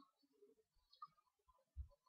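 Near silence: faint room tone with a few soft clicks and one short low thump near the end.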